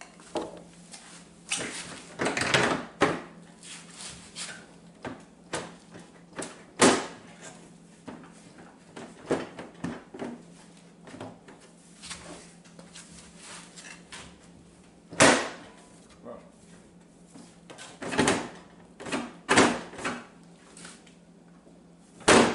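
Plastic hood of a Cub Cadet lawn tractor being worked into its mounting slots and handled: irregular knocks, clunks and scrapes, with several louder knocks spread through.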